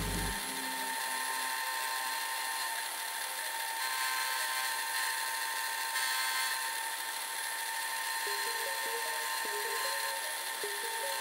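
Milling machine with a Maritool half-inch end mill cutting through a weld bead and steel plate. It makes a steady whine with a hiss of chips being cut.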